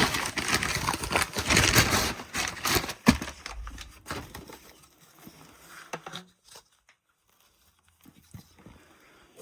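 Packaging crinkling and rustling with small clicks as it is handled and pulled away, busiest for the first four seconds, then dying down to a few faint sounds.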